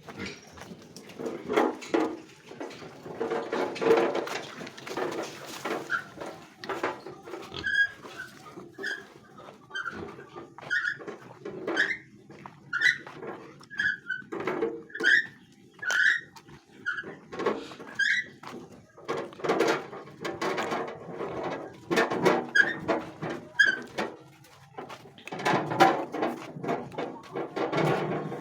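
Farm animals calling: rough noisy calls come and go throughout, and in the middle a run of short high calls repeats about twice a second.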